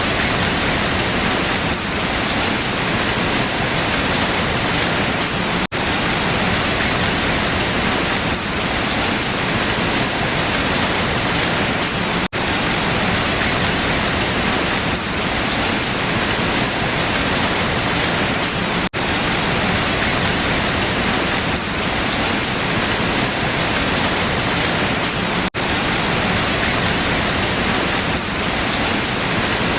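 Steady rain falling on leaves, an even hiss with a momentary drop-out about every six and a half seconds.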